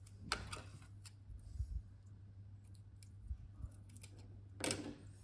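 Masking tape being handled, pulled from the roll and torn: two short rasps, the louder one near the end, among faint clicks and light knocks.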